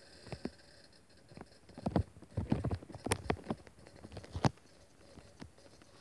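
Handling noise: a run of irregular light knocks and taps as hands move equipment on a wooden table, the sharpest about two, three and four and a half seconds in.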